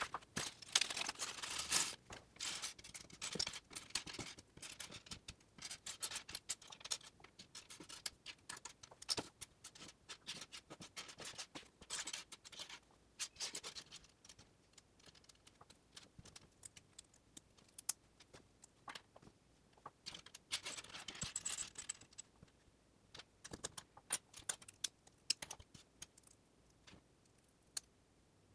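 Small plastic LEGO bricks clicking, tapping and rattling on a tabletop as they are sorted and snapped together. There are denser bursts of plastic crinkling and rattling at the start and again around two-thirds of the way through.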